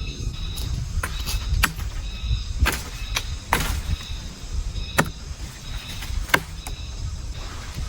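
A series of sharp knocks and clacks, about seven at irregular intervals over a low rumble.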